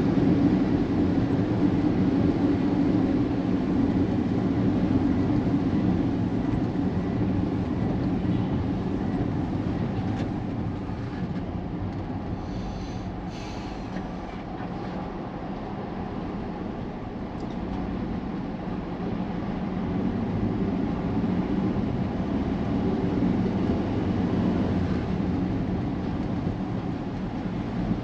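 Road noise inside a moving car: a steady low drone of engine and tyres on wet pavement. It eases off a little about halfway through and builds again.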